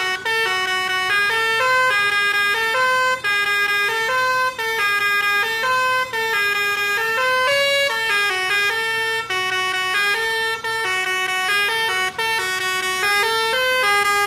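A lorry's telolet musical horn (Basuri type) playing a tune: a steady run of short, stepped notes, several a second.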